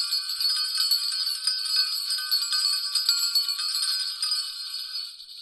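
Many bells jangling together in a dense, continuous shimmer, fading out near the end.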